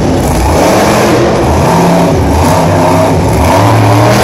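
Grave Digger monster truck's supercharged V8 engine revving up and down several times as the truck drives across the dirt, loud and close.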